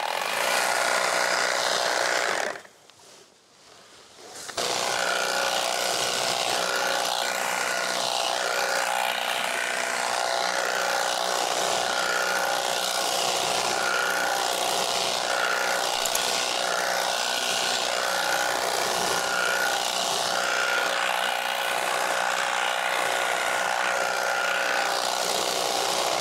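Battery-powered handheld tea harvesting machine running, its toothed cutter clipping tea shoots with a steady buzz. It stops for about two seconds near the start, then starts again and runs evenly.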